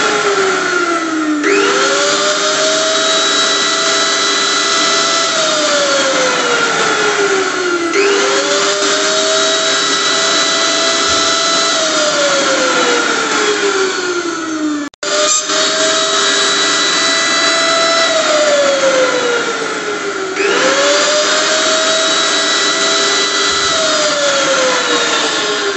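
Electric blender motor switching on and spinning up, running at a steady speed for about three seconds, then winding down with a falling whine. The cycle repeats about every six and a half seconds, four times over, with a momentary dropout about halfway through.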